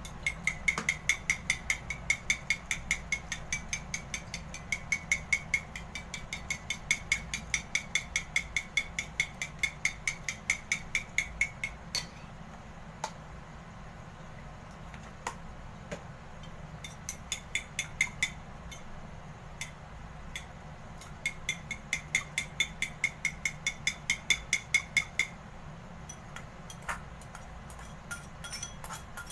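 Metal fork beating eggs in a ceramic bowl, clinking against the bowl about five times a second as the egg mixture for steamed egg is whisked. The beating stops about twelve seconds in, leaving a few single clinks, and starts again for about eight seconds from about seventeen seconds in.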